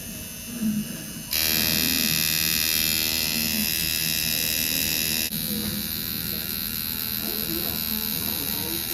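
Tattoo machine buzzing steadily, much louder from about a second in until about five seconds in, then quieter.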